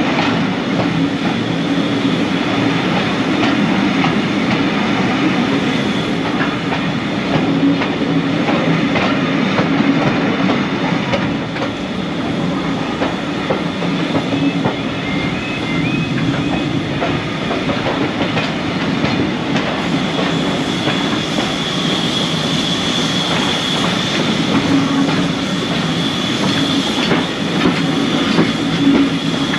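Heritage railway train running along the track: a steady rumble with the clickety-clack of wheels over the rail joints. A high steady tone grows stronger about two-thirds of the way through.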